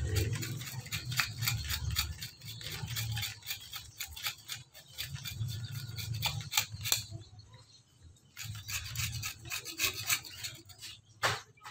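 Knife scraping and shaving the coir fibre off the husk of a sprouted coconut in quick rasping strokes, pausing briefly about two-thirds of the way through before starting again.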